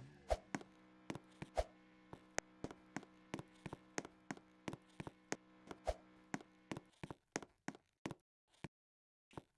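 Quick light taps or clicks, about three to four a second, over a steady hum that stops about seven seconds in.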